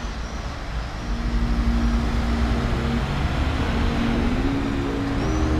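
Road traffic on a wide city avenue: vehicles driving past, with an engine's note rising in pitch near the end.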